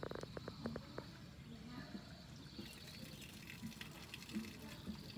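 Faint trickling and lapping of swimming-pool water, with a few sharp clicks in the first second.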